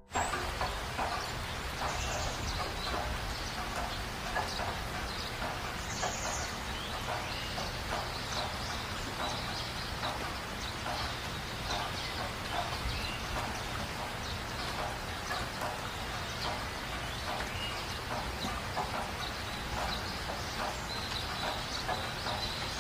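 Outdoor ambience: a steady rushing hiss with many small scattered crackles and clicks, and a couple of brief high chirps about two and six seconds in.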